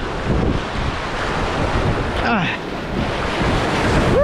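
Sea waves washing onto a rocky shore in rough water, with strong wind buffeting the microphone as a constant low rumble. A brief voice sound comes a little after two seconds in.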